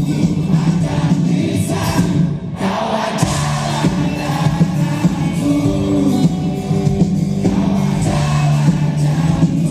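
Live rock band playing through a concert PA: a male lead singer sings over electric guitar, bass and drums. The music briefly drops out about two and a half seconds in.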